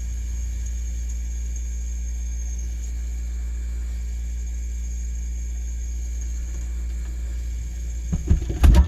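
Refrigerator running with a steady low hum and faint high steady tones, then a few knocks and clatter near the end.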